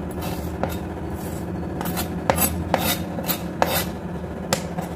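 Kitchen utensil clicking and scraping against a dish, about a dozen short irregular strokes, over a steady low hum.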